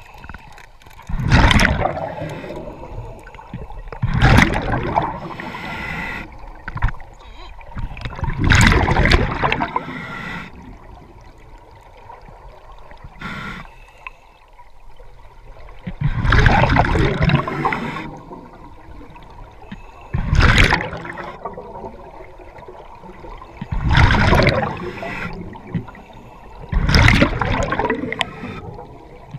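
Scuba regulator exhaust: bursts of exhaled bubbles gurgling underwater, about seven loud ones, each about a second long and coming every three to four seconds, with a longer pause in the middle.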